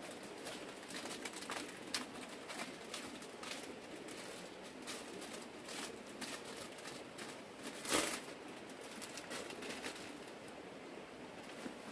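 Plastic bags crinkling and rustling as they are handled and opened, with a louder crinkle about eight seconds in.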